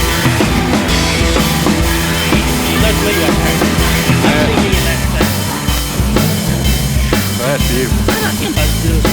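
Rock music with a driving drum kit and bass line.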